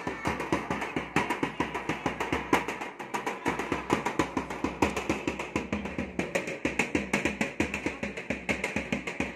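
Large two-headed barrel drum with a metal shell, beaten with a stick in a quick, even rhythm of several strokes a second for a group dance.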